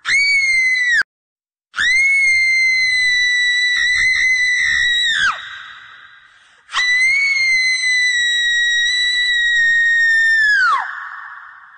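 Screams used as a horror sound effect: a short, high-pitched shriek that cuts off abruptly about a second in, then two long shrieks of about four seconds each, held at a steady pitch. Each long shriek falls in pitch at the end and fades out slowly in an echo.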